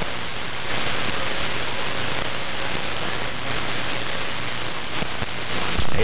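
CB radio receiver static: a steady hiss of band noise on an empty AM channel with the squelch open, heard once the other station unkeys. It stops as the next transmission comes in.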